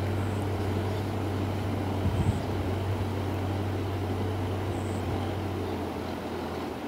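Tractor diesel engine running steadily at work puddling a flooded paddy field, a low even hum that eases off about six seconds in.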